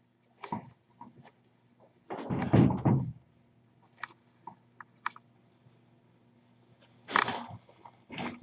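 A few knocks and thumps in a small room: small clicks, a louder cluster about two to three seconds in, and another about seven seconds in, over a faint steady hum.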